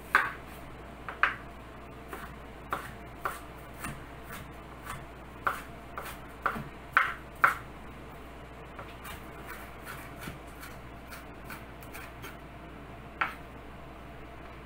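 Kitchen knife slicing a bell pepper on a cutting board: irregular knocks of the blade against the board, a few louder ones among softer taps, with pauses between.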